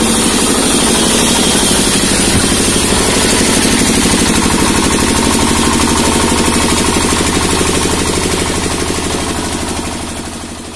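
Single-cylinder engine of a three-phase generator set running steadily with a fast, even knocking beat, fading out near the end.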